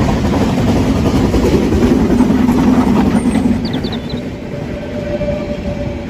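Harz narrow-gauge (HSB) steam train running past: a loud, dense rumble of the locomotive and the coaches' wheels on the rails, heaviest in the first half and easing as the coaches go by.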